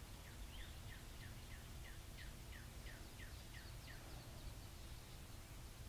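A songbird sings a fast run of short falling whistles, about four a second, which stops about four seconds in. A steady low background rumble runs under it.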